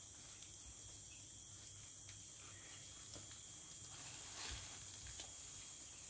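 Faint, steady high-pitched drone of insects, with a couple of soft rustles about four and a half and five seconds in.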